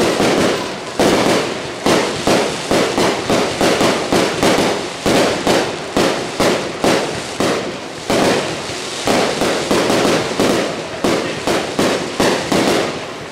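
Fireworks display: a rapid, continuous barrage of bangs, about two to three a second, each dying away in a short rumbling echo.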